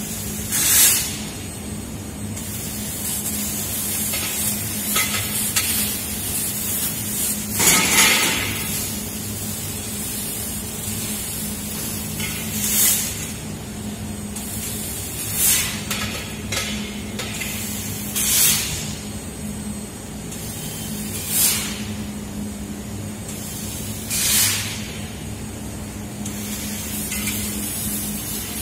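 CNC fiber-laser tube cutting machine running with a steady hum, broken by short hissing bursts about every three seconds as it cuts.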